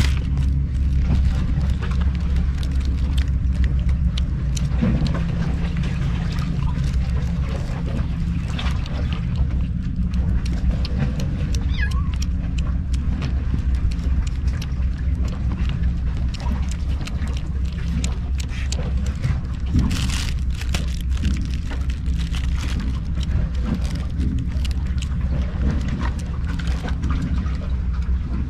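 Kittens eating wet kitten food from a styrofoam bowl right by the microphone: many small, irregular clicks of chewing and lapping. A steady low hum runs underneath.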